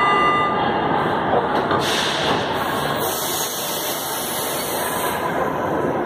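Subway train standing at a station platform, its compressed air hissing: a burst about two seconds in, then a longer hiss from about three to five seconds, over the steady noise of the train and station.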